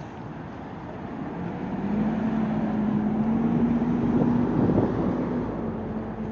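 A motor vehicle going by close on a city street: its noise swells about two seconds in, with a steady low engine tone, then eases near the end.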